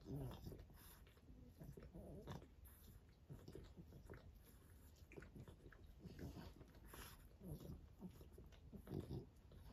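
French bulldog licking and nibbling another French bulldog's head, with soft wet mouthing and chewing sounds and several short, low grunts.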